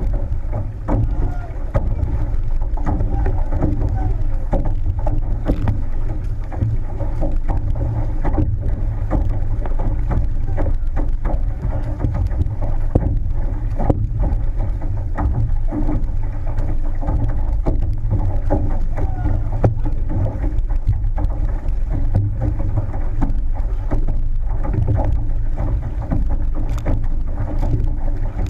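Water rushing and splashing along the hull of a six-person outrigger canoe racing under paddle, with heavy wind noise on the microphone.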